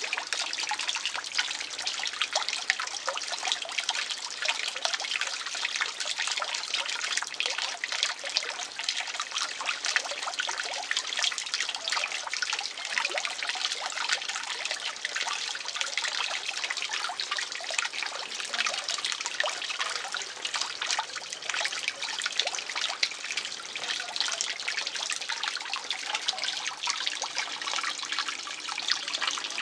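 Water trickling and splashing steadily at the surface of a garden fish pond.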